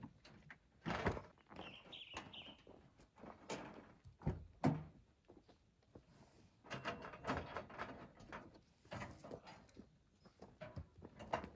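Scattered knocks and thunks of camp gear being handled at a pickup truck, with the truck's rear cab door opened and a cooler taken out. The loudest knocks come about a second in and about four and a half seconds in, with a run of smaller clatter later on.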